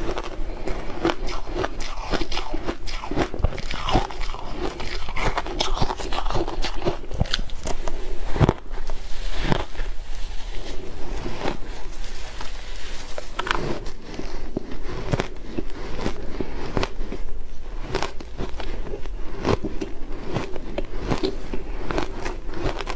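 Shaved ice crunching as it is bitten and chewed, with the crackle of the ice being scooped and squeezed by hand; a dense, unbroken run of small crunches and clicks.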